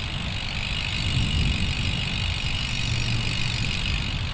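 Road bike being ridden: wind rumbling on the microphone over a steady high hiss of riding noise.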